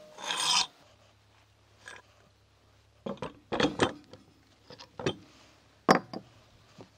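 Metal spit parts (a long steel rod, clamp forks and a small metal sleeve) knocking and clinking as they are handled on a wooden table. There is a short rattle at the very start, then a few separate clanks in the second half.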